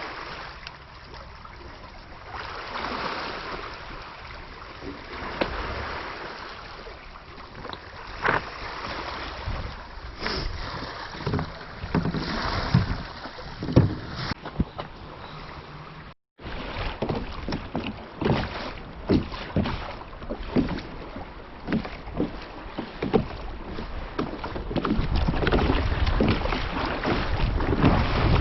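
Water sloshing against a kayak at sea with wind on the microphone, and many scattered short knocks and clicks. The sound drops out for an instant about sixteen seconds in, and the low rumble of wind and water grows near the end.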